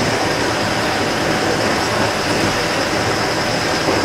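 A parked tour coach's engine idling: a steady, continuous running noise with a thin high whine on top.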